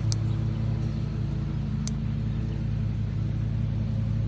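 A steady, low mechanical hum like an idling engine, with two short, sharp clicks: one right at the start and one about two seconds in.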